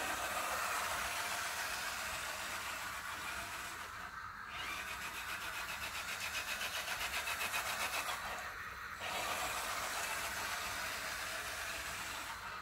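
1:14-scale RC Zetros truck driving on asphalt: a steady high motor and drivetrain whine that drops out briefly twice, about four and nine seconds in.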